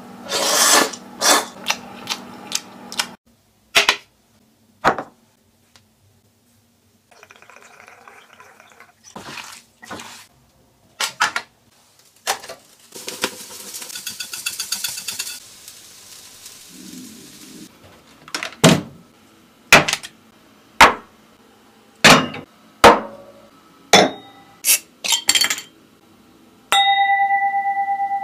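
A string of sharp clinks and knocks of dishes and utensils. Partway through, a shaker of chili powder is shaken over grilling meat skewers, a fine rapid rattle lasting about two seconds. Near the end, a drinking glass rings with a clear tone.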